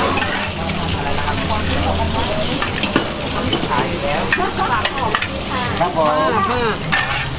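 Food sizzling in hot oil on a large shallow street-stall frying pan, with a metal spatula and ladle scraping and clicking against the pan as the batter and bean sprouts are turned. A steady low hum runs underneath.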